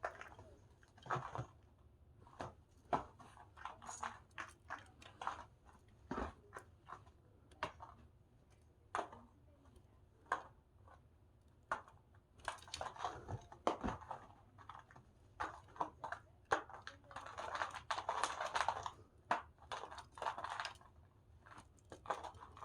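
Irregular taps, thumps and scratchy rustling from a cat at play, pouncing and landing, with longer bouts of rustling about halfway through and again near the end.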